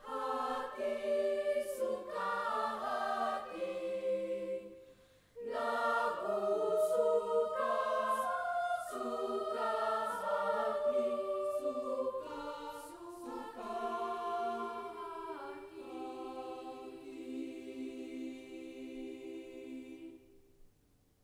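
Mixed-voice secondary school choir singing in chords, with a short break about five seconds in. The song ends on a long held chord that grows softer and is released about a second before the end.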